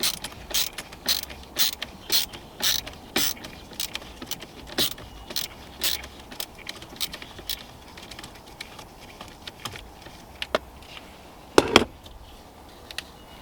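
Quarter-inch drive ratchet clicking in repeated strokes while backing out a screw, about two a second for the first six seconds, then slower and sparser, with a louder pair of clicks near the end.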